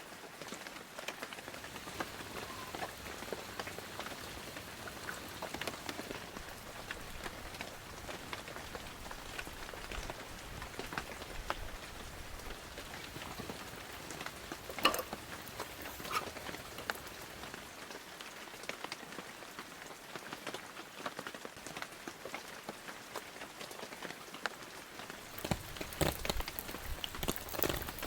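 Steady rain falling, with many separate drops hitting close by. One louder drop lands about halfway through, and a cluster of louder hits comes near the end.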